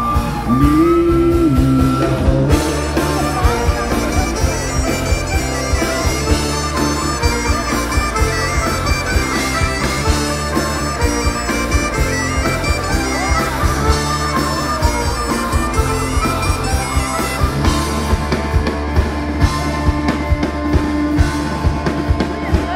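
Folk-rock band playing an instrumental passage live: a high whistle melody with fiddle and accordion over electric guitar, bass and a steady drum beat.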